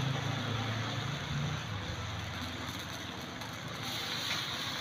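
Pork barbecue skewers sizzling over a charcoal grill, a steady hiss with a low hum underneath. The hiss gets brighter near the end, as more marinade is brushed on.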